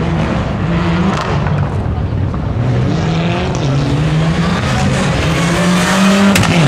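Mitsubishi Lancer Evolution rally car's turbocharged four-cylinder engine revving hard through a corner. Its pitch climbs and drops several times with gear changes and throttle lifts, and there are a few sharp cracks near the end.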